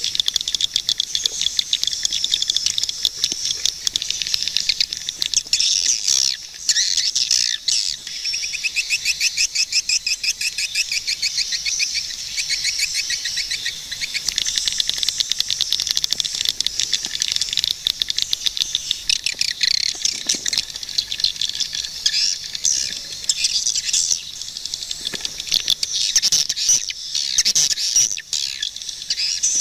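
Swiftlets calling in a dense, continuous chatter of high chirps and rapid twittering trills, many birds overlapping.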